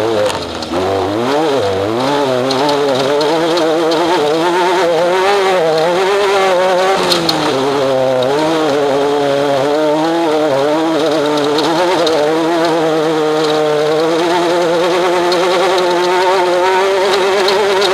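Off-road race vehicle's engine running hard under constantly changing throttle, its pitch rising and falling as it revs up and backs off.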